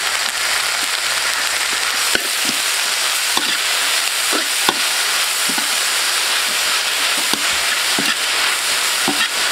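Chopped chives frying in oil in a metal wok, a steady sizzle, while a metal spatula stirs and tosses them, scraping and clinking against the wok about once a second.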